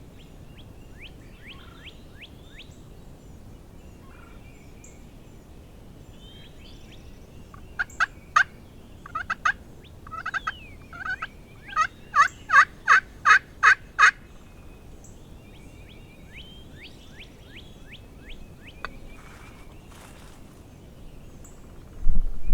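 A run of loud, short turkey yelps, scattered at first and then a steady string of about eight at roughly three a second, over songbirds singing thin falling notes. A brief low rumble right at the end.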